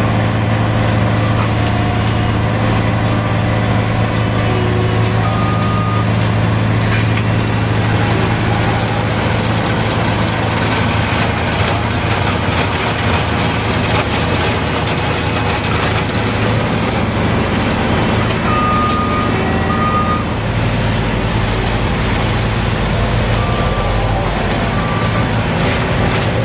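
Heavy road-milling equipment and dump trucks running steadily with a deep diesel hum. A few short, high beeps sound now and then over it.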